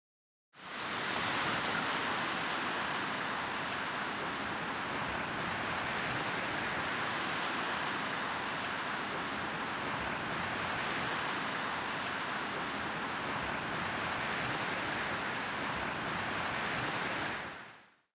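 Steady rushing noise, even in level throughout, fading in just after the start and fading out near the end.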